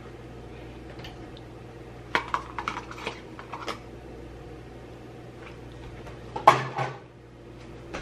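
Kitchen dishes and utensils clattering: a run of light clinks and taps about two seconds in, then a louder clatter near the end, over a steady low hum.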